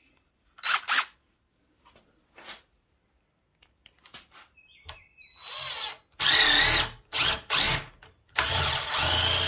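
DeWalt 20V Max cordless impact driver driving a long deck screw into wood. There is a brief burst about a second in, then several trigger pulls from about five seconds, the last and longest near the end. The motor's wavering whine mixes with the rapid ratcheting hammering of the impact mechanism.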